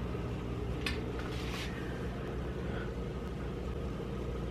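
Steady low electrical hum of an aquarium filter motor, with a short hiss about a second and a half in.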